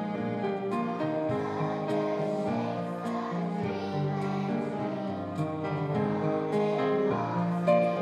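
A children's class singing a song to a guitar accompaniment.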